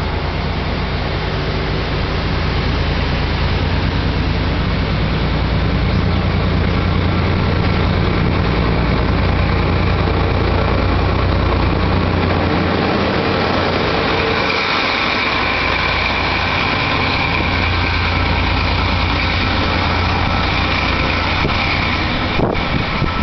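Regional passenger train pulling away, its coaches rolling past over the track with a steady low engine rumble. A high, steady whine joins about halfway through and fades near the end.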